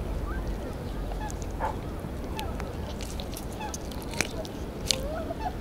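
Hands working a swallowed soft-plastic lure out of a small perch's mouth: a few faint sharp clicks, spread out, over a steady low rumble, with faint short bird calls.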